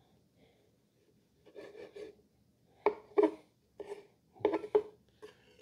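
Large knife sawing through a cooked steak and rasping against a wooden cutting board, in a series of short strokes starting about a second and a half in.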